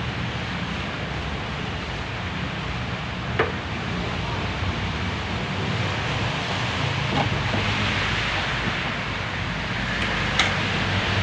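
Steady wind-like background noise, with a few sharp clicks and knocks from work on a car's plastic bumper cover as it is being taken off.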